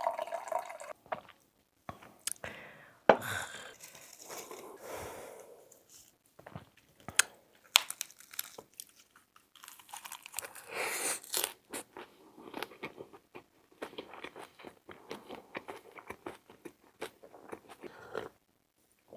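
A person chewing and crunching a mouthful of lettuce wrap with stir-fried pork close to the microphone, with many small irregular crunches and mouth clicks. There is a louder crunchy stretch about ten seconds in.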